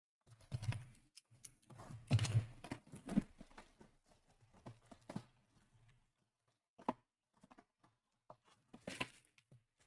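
Trading cards and their packaging being handled on a table: rustling, scraping and tearing for the first few seconds, then scattered light taps and clicks.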